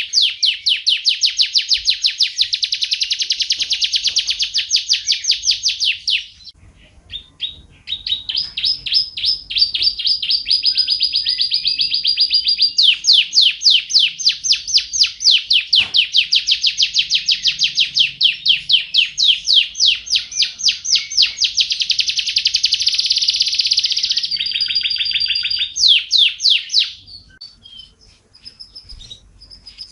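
Wild white-rumped shama (murai hutan) singing long, very fast trilled runs of rapidly repeated high notes, with a short pause about six seconds in and the song breaking up near the end.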